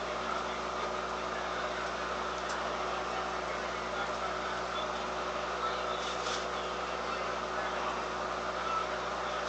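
Steady, unchanging hum and hiss with a faint steady tone running under it, and a couple of faint clicks: kitchen background noise of a running appliance.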